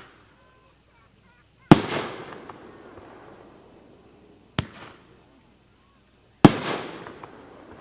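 Magnus Fireworks Neon Jungle cake firing. About two seconds in, a shell bursts with a loud bang that echoes away. A sharp launch thump comes about four and a half seconds in, and that shell bursts with a second loud, echoing bang just under two seconds later.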